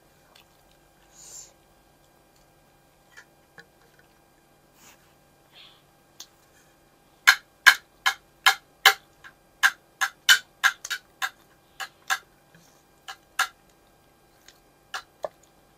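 Close-miked eating sounds: a run of loud, sharp mouth clicks and smacks, two or three a second, starting about seven seconds in and lasting some six seconds, over a faint steady room hum.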